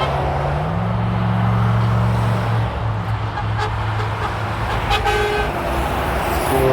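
Heavy truck passing on a motorway, its engine running with a steady low drone that steps up in pitch under a second in. About five seconds in a truck horn sounds a short toot, with another brief toot at the very end.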